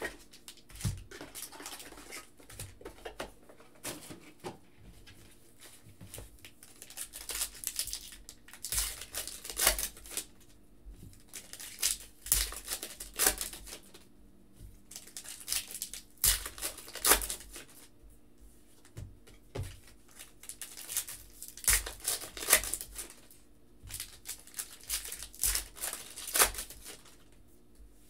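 Foil trading-card pack wrappers crinkling and tearing as packs are ripped open, in repeated bursts every few seconds with short pauses between, along with cards being handled.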